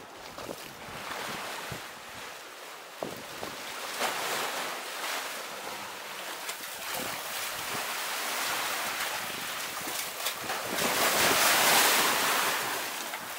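Sea waves washing onto a beach, with wind gusting on the microphone; one wash swells to its loudest near the end.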